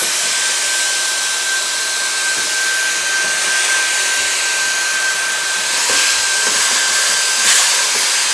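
Dyson cordless vacuum cleaner running steadily at full speed with a high-pitched whine.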